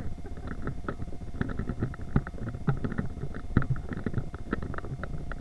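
Rumbling, rubbing and irregular knocking from an action camera jostled as its wearer walks, with a thin steady tone underneath.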